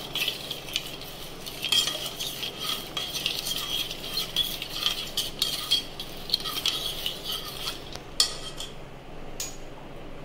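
Metal spoon stirring ice cubes and boiled raw-mango pulp in a stainless steel pressure cooker, with quick clinks and scrapes against the steel. The stirring stops about eight seconds in with a sharp knock, and one more click follows.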